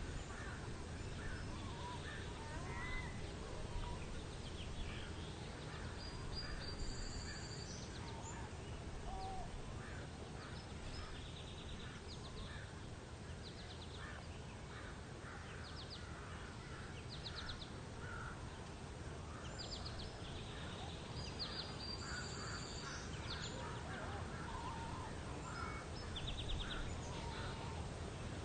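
Birds chirping and calling, with short whistles and quick trills, over a steady low rumble. About fifteen seconds in, the same run of calls comes round again.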